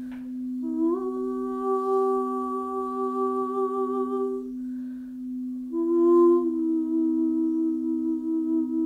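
Quartz crystal singing bowls (gemstone alchemy bowls) sounding together. One low bowl hums steadily throughout. A higher bowl rings in about a second in and stops just past the middle, and another enters about six seconds in and keeps ringing with a slight waver.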